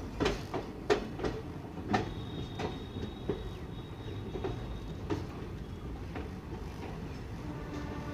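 Aranyak Express coaches pulling slowly out of a station, heard from on board: the wheels knock over rail joints and points in an uneven series of clanks over a low rumble. The clanks come quickly at first and then thin out. A faint high squeal sounds for a few seconds midway.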